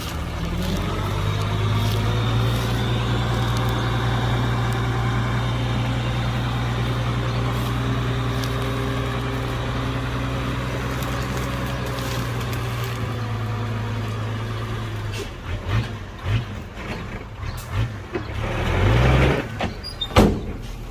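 Heavy diesel engine of a dump truck or earthmover running hard at a steady pitch after a short rev-up. About fifteen seconds in it turns uneven with short revs, then revs up once more near the end, followed by a sharp knock.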